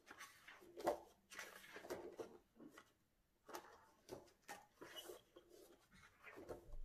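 Pages of a spiral-bound coloring book being turned by hand: a string of soft, short paper rustles and flaps.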